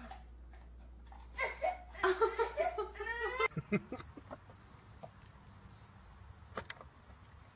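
Laughter, a run of short laughing sounds lasting about two seconds, followed by an abrupt change to a quieter background with a few faint taps.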